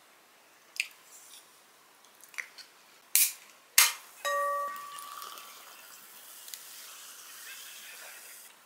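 An aluminium can of Chilsung Cider soda cracked open: a sharp pop and hiss about three seconds in, a second sharp click a moment later, then a steady fizzing hiss of carbonation that lasts until near the end.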